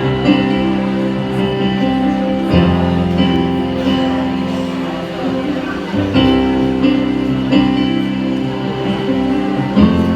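Live rock band playing an instrumental stretch between vocal lines: ringing guitar chords over bass, the chord changing about every three and a half seconds.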